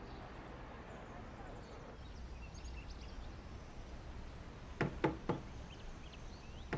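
Three quick knocks on a door about five seconds in, with another knock just as it ends. Faint chirping in the background.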